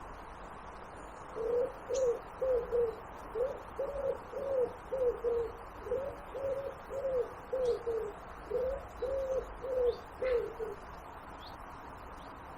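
A pigeon cooing: four phrases of low, repeated coos over about nine seconds, starting a second or so in and stopping before the end.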